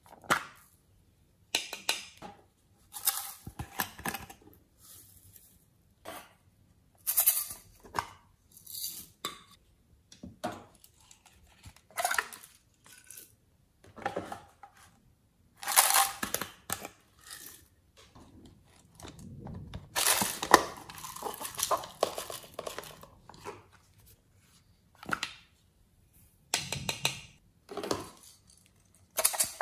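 Glitter and sequins shaken from small plastic containers into a glass baking dish of glue, with rattles and clicks of plastic pots being picked up and set down. The sounds come in separate short bursts, with a longer busy stretch a little past the middle.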